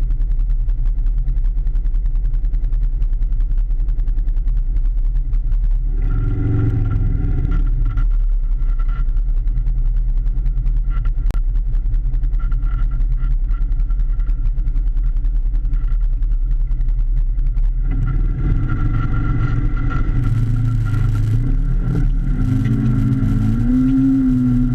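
Polaris RZR 1000 XP side-by-side's twin-cylinder engine running at low revs, with a short burst of throttle about six seconds in. From about eighteen seconds it revs harder, rising in pitch near the end, as the machine pushes into flood water, with water hissing and splashing against the body.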